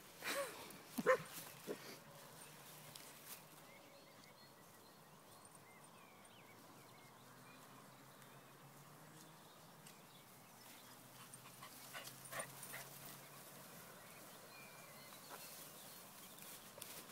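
A dog giving a few short yips in the first couple of seconds, followed by a few sharp clicks about twelve seconds in over a quiet background.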